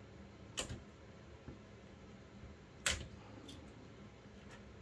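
A few sharp clicks and knocks of a graphics card's stock heatsink and circuit board being handled and worked apart as the cooler is removed. The loudest click comes about three seconds in, with another about half a second in.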